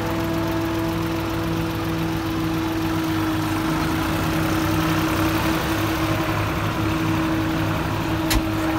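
Tractor engine running steadily with a single-row silage harvester, a constant mechanical drone with a steady whine over it. A single sharp click sounds near the end.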